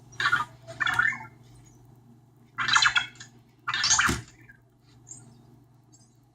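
Anki Vector robot making four short bursts of sound, about a second or so apart and ending about four seconds in, over a steady low hum.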